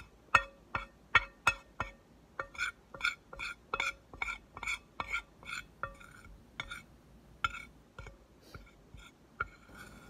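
A metal spoon tapping and scraping against a plate while breaking up cornstarch: a quick run of ringing clinks, two or three a second, growing softer in the second half.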